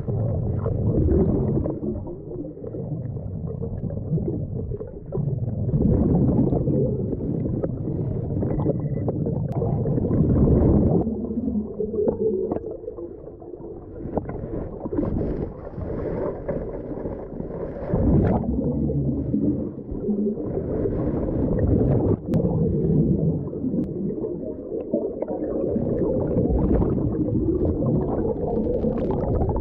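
Muffled underwater rumble and sloshing picked up by a camera submerged in a weedy lake, swelling and fading unevenly as the diver moves, with a few sharp knocks.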